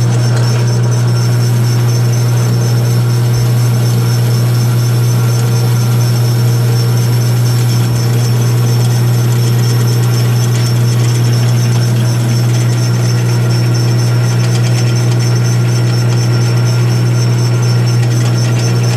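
Drill press motor running with a loud, steady low hum while its countersink bit is lowered onto the end of a cut-off bolt to cut a countersink in it.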